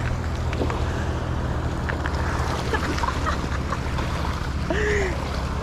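A boat's engine running steadily with a low hum, under faint knocks and a short call from a voice near the end.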